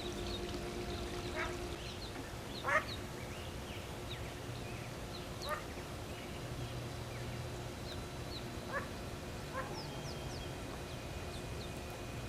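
A hen duck quacking now and then while her ducklings peep, in short calls scattered throughout, the loudest about three seconds in.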